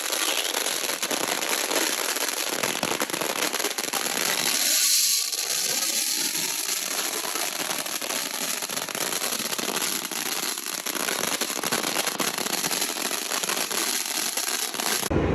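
Fireworks going off in a dense, continuous crackle of rapid small pops, with no deep booms.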